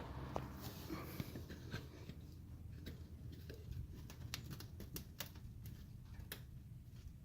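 Faint, scattered clicks, taps and scuffs of hand work on the truck's front suspension, over a low steady hum.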